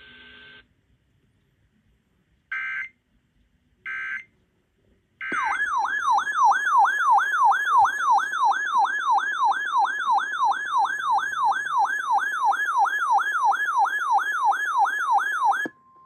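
Three short screeching bursts of NOAA Weather Radio SAME digital data, then a weather alert radio's alarm siren warbling rapidly up and down, about three sweeps a second, for some ten seconds before it cuts off. The siren is the radio's alert for an incoming tornado warning.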